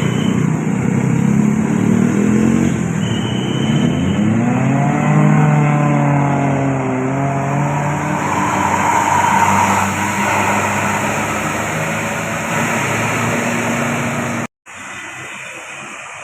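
Bus's diesel engine running close by, its revs rising and falling as it pulls past, with road and tyre noise swelling. Near the end the sound cuts off suddenly to a quieter background.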